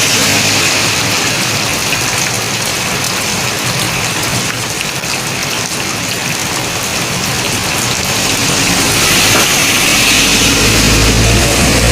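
Steady rain falling. Near the end a vehicle's engine approaches, its low rumble growing louder.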